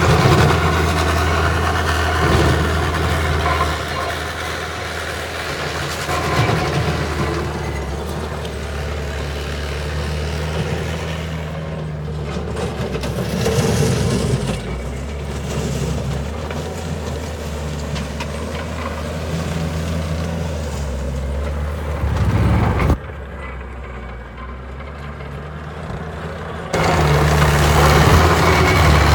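Diesel engine of a TL130 skid steer loader running, a steady low hum whose pitch shifts up and down now and then. The sound drops abruptly about 23 seconds in and comes back loud about four seconds later.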